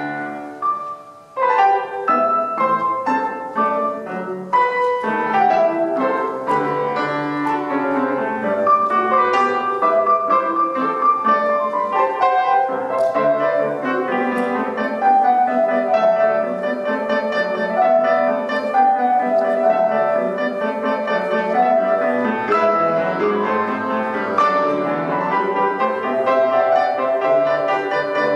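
Grand piano played four hands in a classical piano duet, a quick run of notes with a short break about a second in before the playing picks up again.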